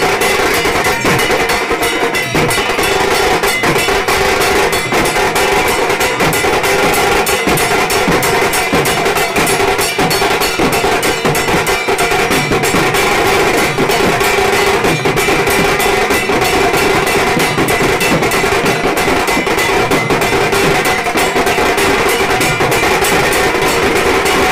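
Loud, fast percussion music of drums with clanging metal percussion, struck in a dense, unbroken rhythm.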